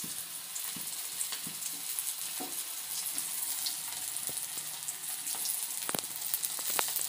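Rava- and besan-coated black pomfret (halwa) pieces shallow-frying in hot oil in a tawa, a steady sizzle with fine crackling and a few sharper pops.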